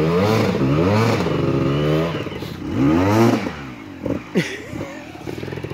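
Enduro dirt bike engine revved hard in two bursts as the rider tries to climb a steep muddy slope, the pitch rising and falling with each burst; after about three and a half seconds the engine drops back to a lower, quieter running with a few knocks.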